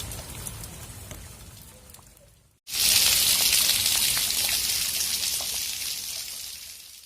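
Rain falling, with scattered drops heard hitting. About two and a half seconds in it cuts off and comes back louder and hissier, then fades slowly.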